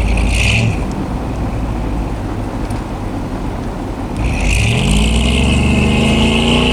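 Chevy pickup truck engine running, then revving up about four seconds in, its pitch rising and holding high as the truck drives through deep snow.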